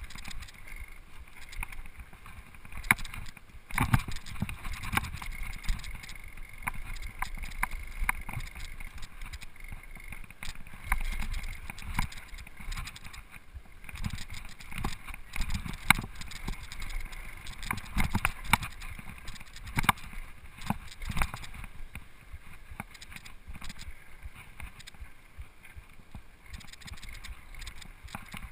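Rocky Mountain Flatline downhill mountain bike rolling down a rocky dirt trail, heard from a rider-mounted camera: steady tyre and trail noise with frequent irregular clattering knocks as the bike hits bumps and rocks.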